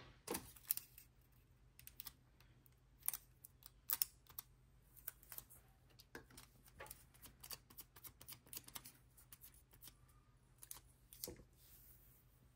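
Scattered light clicks and taps of nail-stamping tools being handled on a work mat: a clear stamper, a metal stamping plate and polish bottles set down and picked up. The clicks are irregular, with a few sharper ones near the start, around three to four seconds in, and near the end.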